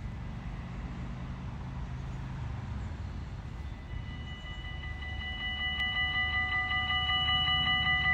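Level-crossing warning bells start ringing about halfway through: a rapid, pulsing electronic ring of several tones, growing louder toward the end, over a low steady rumble. The ringing signals an approaching train, just before the half-barriers come down.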